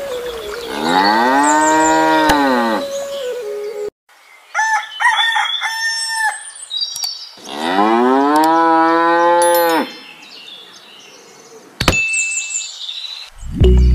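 Cow mooing twice, each a long call of about two seconds that rises and then falls in pitch, with a shorter, higher animal call between them. A click comes near the end, and music starts just before it ends.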